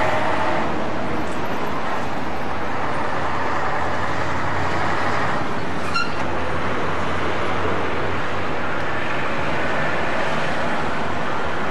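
Road traffic going round a roundabout over a steady hiss, with a heavy lorry's diesel engine rumbling past about halfway through.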